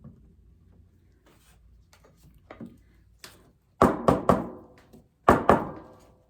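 Hard knocks of objects on a work table, each with a short ringing decay: three in quick succession about four seconds in, then two more about a second and a half later.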